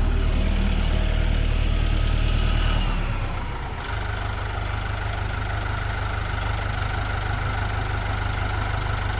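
A vehicle engine running steadily. About three seconds in it drops to a lower, quieter speed and holds there, idling.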